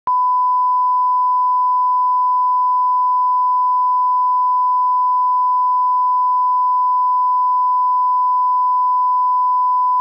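A single unbroken pure test tone at one fixed pitch, about ten seconds long, cutting off abruptly.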